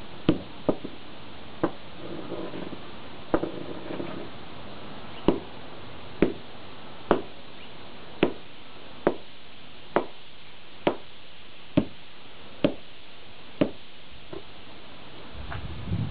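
A small sledgehammer repeatedly striking C batteries on a concrete walkway: about fifteen sharp metallic blows, irregular at first, then a steady one a second.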